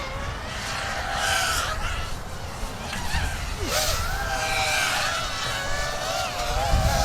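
Motors of several 7-inch FPV racing quadcopters whining together, their pitch rising and falling as the pilots work the throttle, with a low rumble of wind on the microphone.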